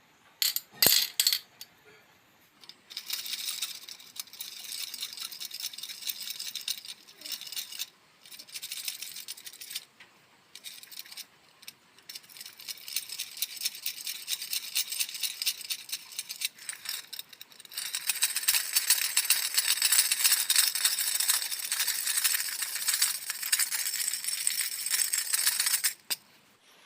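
Rapid scrubbing, a brush worked back and forth over a gas stove part in bursts with short pauses, then steadier and harder for the last several seconds before stopping. A few sharp clacks come just before the scrubbing starts.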